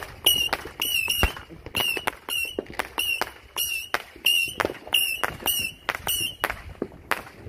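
Fireworks going off in a rapid, even string of pops, about three a second, each trailed by a short high tone. The string stops shortly before the end.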